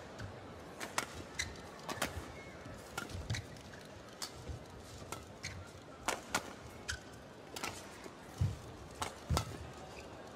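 A fast badminton rally: sharp cracks of racket strings hitting the shuttlecock, about one every second, with short squeaks of court shoes on the mat and thuds of footwork and lunges in between.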